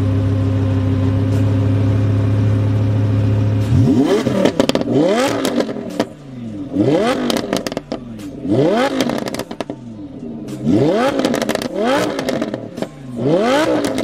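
Lamborghini Huracán LP610-4's naturally aspirated V10 idling steadily through an FI Exhaust valvetronic cat-back exhaust, then, about four seconds in, revved in a string of quick throttle blips that each climb and fall back, with crackles and pops as the revs drop.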